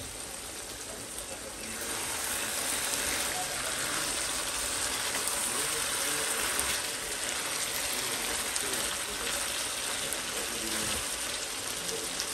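Marinated mutton pieces sizzling as they fry in oil and spiced masala in a pan, stirred with a spatula. The sizzle is steady and grows louder about two seconds in.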